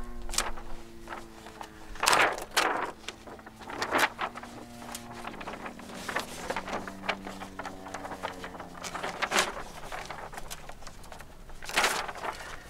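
Tape being torn and paper sheets being handled and pressed flat against a wall: a string of short rasping rips and rustles, the loudest about two seconds in and near the end. Sustained low notes of background music that change pitch twice run underneath.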